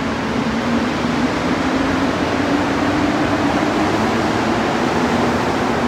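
Azur rubber-tyred metro train moving along the platform: a loud, steady rushing with a low hum whose pitch rises a little and then falls back.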